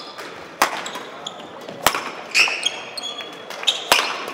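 Badminton rally: rackets striking the shuttlecock in sharp, echoing hits about a second or more apart, with short high squeaks in between.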